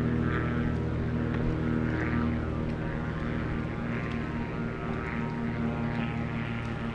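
A steady engine drone holding the same pitch throughout, with a soft hiss that swells every couple of seconds.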